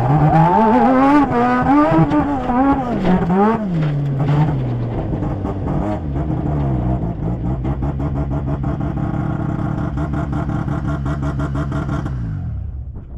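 Rotary engine of the Rumbull stadium race truck, heard from inside the cab. It revs up and down through the first few seconds, then eases to a steady lower note with a fast, even pulsing as the power is backed off, and drops away near the end. The truck is losing drive because a wheel has broken off at the hub.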